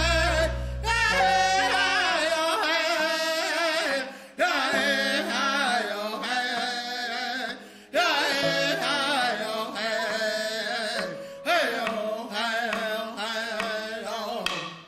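Background music with a singing voice, dipping briefly between phrases and fading out at the very end.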